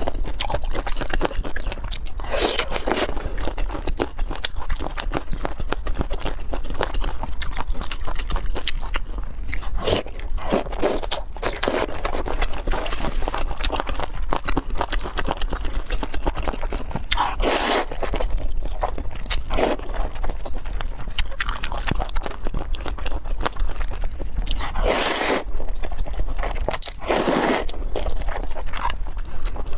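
Close-miked mouth sounds of biting and chewing spicy boneless duck feet. Near the end come a few louder, half-second slurps as noodles are sucked in.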